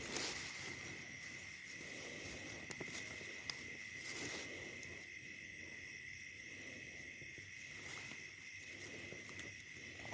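Night insects trilling steadily in one continuous high tone, with faint rustling and scattered small clicks from movement in the grass.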